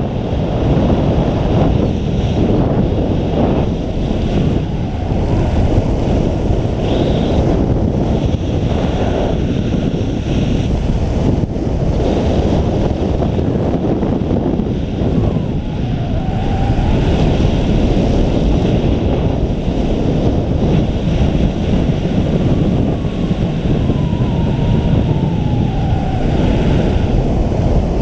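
Wind buffeting the camera microphone during a parachute descent under an open canopy: a loud, steady rush of air noise.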